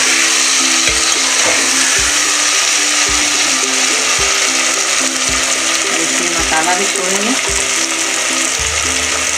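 Sliced onions and chopped tomatoes frying in hot oil in a pressure-cooker pot, a steady sizzling hiss.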